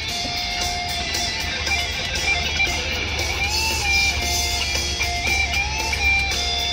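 Background music: a guitar song's instrumental passage, with strummed guitar and a lead line whose notes bend and slide.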